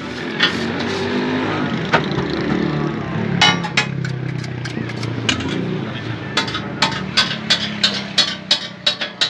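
Metal spatula striking a flat iron griddle in quick sharp clacks, about three to four a second, in the last third. Before that, a steady engine-like drone of nearby motor traffic is the main sound.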